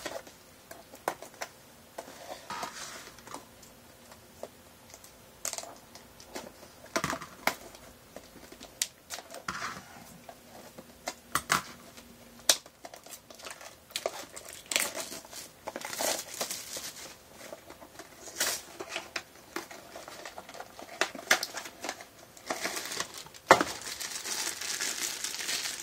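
Crinkling and tearing of blind-box packaging being opened by hand, with scattered clicks and taps of handling. The crinkling turns dense and continuous near the end.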